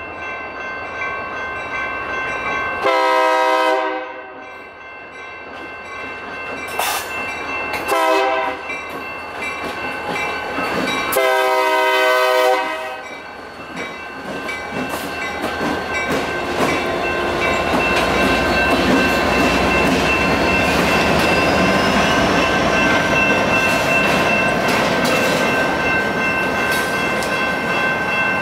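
Union Pacific EMD SD40N diesel locomotive sounding its horn for the grade crossing: a long blast, a short one, then a long one. The locomotives and freight cars then rumble past over the crossing, while the electronic crossing bell rings throughout.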